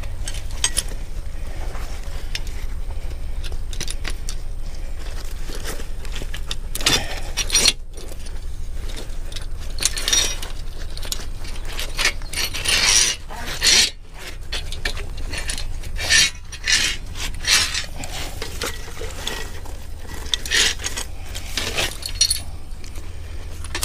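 Steel trap chain and a body-grip trap clinking and rattling as they are handled, in scattered bunches of metallic clinks over a steady low rumble.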